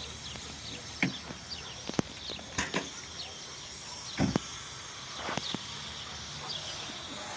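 Farmyard ambience: scattered knocks and thumps over a steady background, with small birds chirping throughout.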